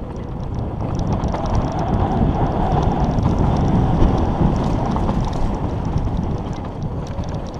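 Wind rushing over the microphone of a mountain bike descending a dirt trail at speed, with tyres rolling over dirt and gravel and many small rattles and clicks from the bike. It gets louder over the first second as the speed builds.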